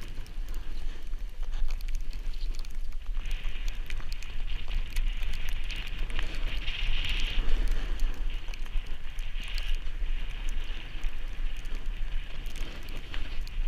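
Wind buffeting a moving camera's microphone, with a low rumble, and the hiss and scrape of sliding over packed snow, swelling in several waves along with fine crackling.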